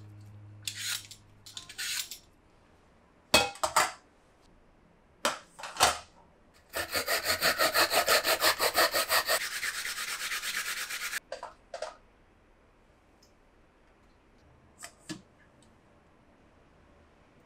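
Lotus root being grated on a flat metal grater over a stainless steel bowl: a fast, even run of rasping strokes lasting about four seconds in the middle. Before it come a handful of single scrapes from a vegetable peeler taking the skin off the lotus root, and after it a couple of short strokes and two light taps.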